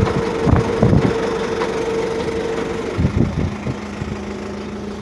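John Deere 5725 Turbo tractor running, with a steady whine that drops to a lower pitch about three seconds in and a few dull knocks. The whine is the strange noise that the mechanic places inside the transmission and traction drive at the rear wheel.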